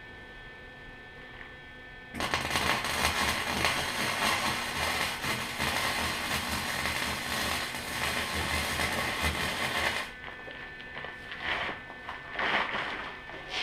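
Flux-core wire-feed welder (Lincoln 180 running 0.035 flux-core wire) laying a weld bead: a steady crackling, sizzling arc that starts abruptly about two seconds in and stops suddenly about eight seconds later. A few faint knocks and rustles follow.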